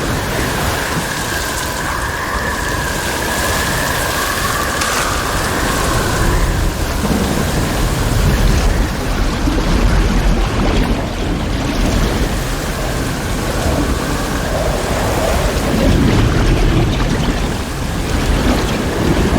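Sound-effect mix of churning, splashing water over a deep, steady rumble, as after a plane crashes into water. A high whine sits over it and fades out about six seconds in.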